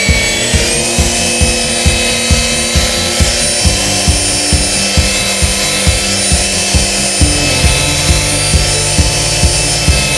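Electric car polisher with a foam pad running at about 1800 rpm on car paint: a steady motor whine that finishes rising to speed within the first second, while it buffs in scratch-removing polishing compound. Background music with a steady beat runs underneath.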